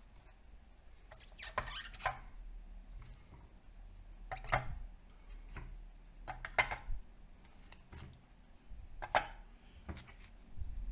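Cast lead ingots set down one after another onto the plastic tray of a kitchen scale, knocking against the tray and against each other: about four short clusters of knocks a couple of seconds apart.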